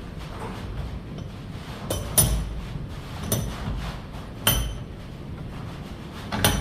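Sharp metallic clinks, about five of them spaced a second or two apart, each with a brief high ring, as metal tools and chain are handled while a saw chain is being sharpened, over a steady low hum.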